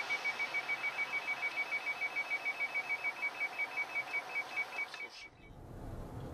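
Rapid electronic beeping at one high pitch, about seven short beeps a second, that stops abruptly about five seconds in. A low steady road rumble follows.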